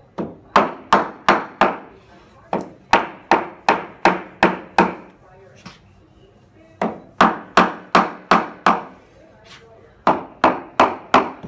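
DRIcore subfloor panels being knocked together at their tongue-and-groove joints with hammer blows on wood, seating each panel. The blows come in four quick runs of four to seven sharp strikes, about two or three a second, with short pauses between the runs.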